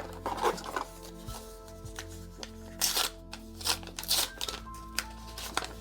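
Star Wars Unlimited trading cards being handled and sorted into piles: several short swishes and slides of card against card, over steady background music.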